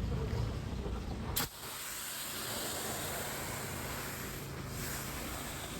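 Pressure washer spraying water onto a concrete sidewalk: a steady hiss with the machine's engine humming underneath. A sharp click comes about a second and a half in, after which the spray hiss is the main sound.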